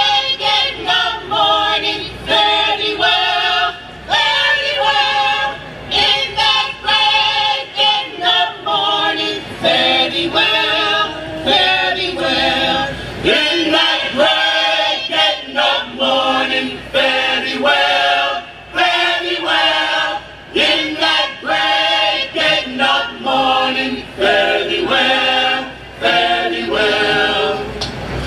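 Gospel church choir of women and men singing together in phrases, with short breaks between them.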